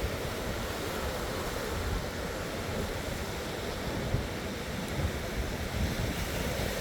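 Ocean waves washing in steadily, with wind gusting on the microphone in low rumbles.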